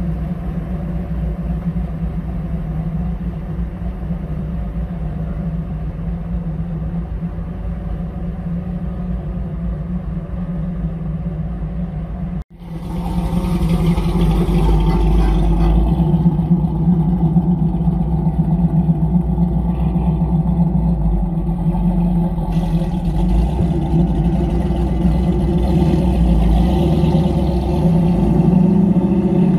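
Big-block Chevy 496 stroker V8 in a 1969 Camaro, first running steadily at idle. After a sudden cut it is louder, and its pitch rises near the end as the car pulls away.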